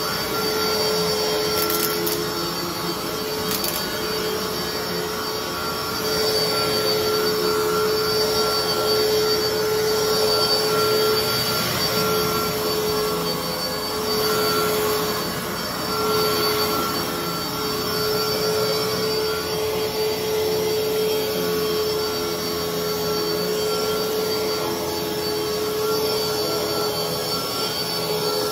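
Fantom Fury upright vacuum cleaner running on carpet: a loud, steady, squealing whine made of several held tones over a rushing hiss. Its motor is worn out, shot in the owner's words.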